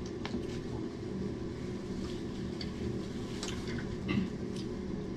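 Steady low background hum with faint, scattered small clicks and rustles of people eating with their hands from a plastic-covered table, one slightly louder about four seconds in.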